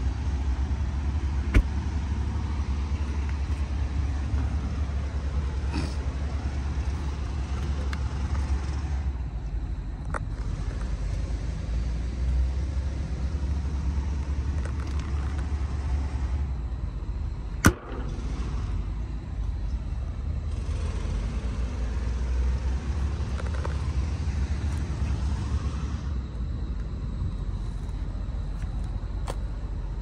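Steady low rumble of an idling diesel truck engine. Two sharp clicks cut through it, the louder one just past the middle.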